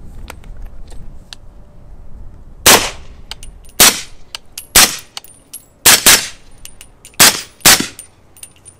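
Suppressed subsonic 300 Blackout rifle shots, about seven in about five seconds, through an AB Suppressors Raptor .375-bore suppressor on an 8-inch-barrel AR. The first shot is the loudest, a first round pop that comes partly from the suppressor's much bigger bore. The rest are quieter, muffled reports.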